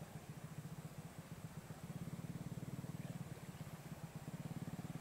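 Faint small engine idling with a steady, fast low pulse, growing a little louder about two seconds in.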